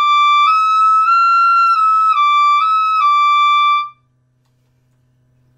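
B♭ clarinet playing a connected phrase of about seven high altissimo-register notes that step up and then back down, stopping about four seconds in. The notes are played with the tongue raised as for an 'ee' vowel, the way to make notes above high E flat speak and stay in tune.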